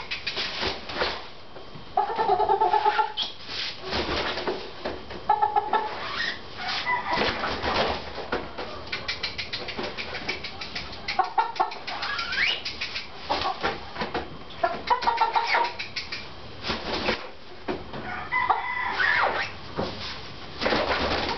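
Gamecocks giving short clucks and calls as they are lifted and set down, among frequent rustling and knocking of wings and feet on a padded bench.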